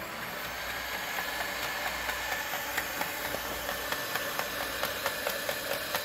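Electric hand mixer running steadily, its beaters whipping batter in a stainless steel bowl, with a high motor whine that climbs slightly as it gets going. From about halfway through, light regular clicks come about three times a second.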